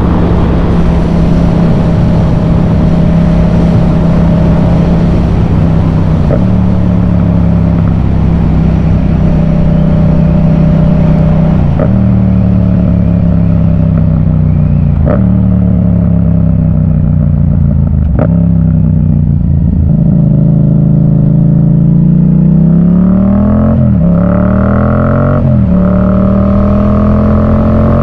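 Yamaha MT-07's parallel-twin running through a Yoshimura full exhaust while the bike is ridden. The engine note drifts slowly lower and jumps sharply up four times. Near the end it dips and rises quickly twice, then climbs as the throttle opens.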